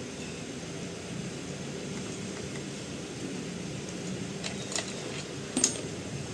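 Steady background hum, then a few sharp clicks and clinks from the second half on as a screwdriver and screws are worked against an office chair's metal seat mechanism. The loudest click comes about five and a half seconds in.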